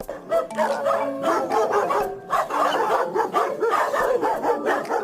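A dog barking and yipping rapidly and almost without pause, over light background music.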